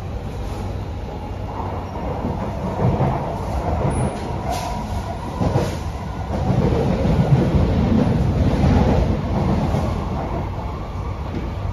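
Cabin noise of a C151B electric metro train in motion: a steady rumble of wheels and running gear, with a couple of short clicks around the middle. It grows louder about six seconds in and eases again near the end.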